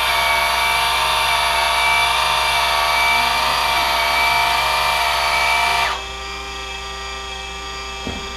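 Meade DS2090AT-TC goto mount's motors and gears whirring steadily as the telescope slews toward its alignment star. About six seconds in the loud whir drops suddenly to a quieter steady hum.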